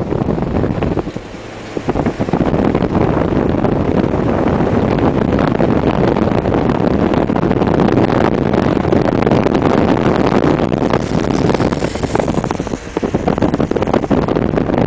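Road noise of a moving vehicle mixed with wind buffeting the microphone, loud and rough, through an open window. It dips briefly about a second in.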